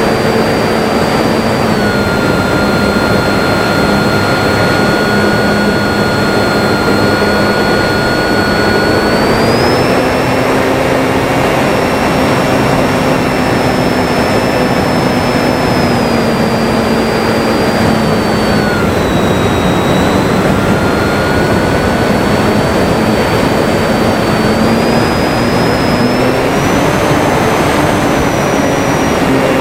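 Electric motor and propeller of a Durafly Tundra RC plane running in flight, a steady whine that rises and falls in pitch a few times with throttle and distance, under heavy wind noise.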